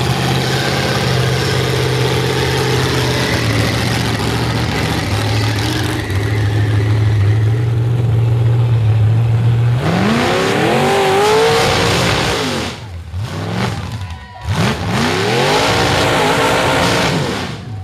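V8 engine of a mud-bog Jeep with upright open headers, held at a steady pitch under load for about ten seconds, then revved up and down sharply several times, with two brief drops in between.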